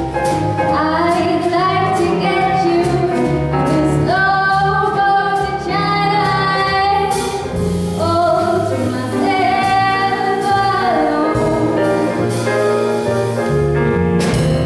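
Female jazz vocalist singing long, gliding notes through a microphone, backed by grand piano, double bass and drum kit. Her singing stops near the end and the piano and band play on.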